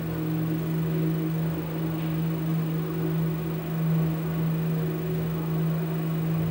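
Steady electronic drone: one low held tone with a few fainter held tones above it over a bed of hiss, unchanging and without any beat.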